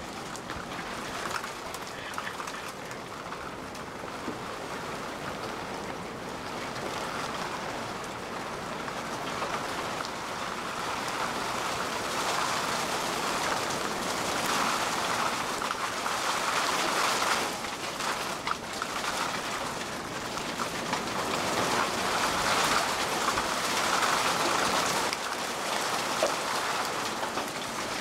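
Heavy rain pouring down on a wet asphalt road, a steady hiss that grows louder about halfway through.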